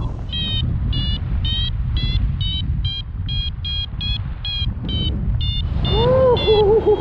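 A rapid series of short, high electronic-sounding beeps, about three a second, with the pitch shifting a little from beep to beep, over a steady low rumble of wind on the microphone. Near the end a lower hooting tone rises and falls, then wavers.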